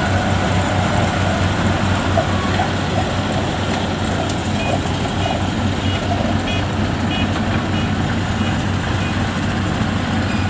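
Engine of a small tracked rice-sack carrier running steadily with a low drone as it crawls across a bridge of steel ramps. A series of short high beeps repeats through the middle.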